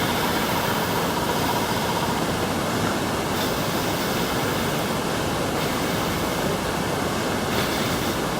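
Steady rushing noise, even and unbroken, with a faint thin tone in the first couple of seconds.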